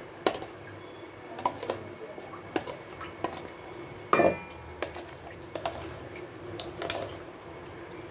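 A utensil scraping and knocking against a mixer-grinder jar and a steel bowl as thick ground chicken paste is cleared out of the jar into the bowl; irregular clinks and scrapes, the loudest about four seconds in.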